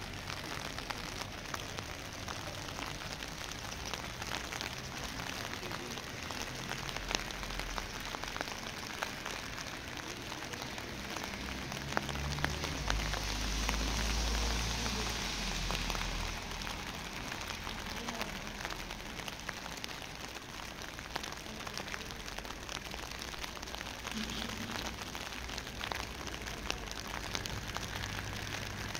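Steady rain falling, an even hiss dotted with many small drop ticks. About halfway through, a low rumble comes in for a few seconds and the hiss grows stronger.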